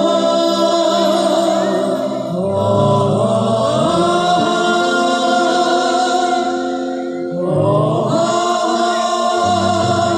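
Music: voices singing together in long held notes with vibrato, from a Vietnamese Christmas carol medley, in phrases that change about two and a half and seven and a half seconds in.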